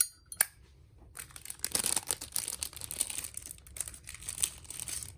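Two sharp clicks at the start, then a plastic bag crinkling as it is handled for about four seconds.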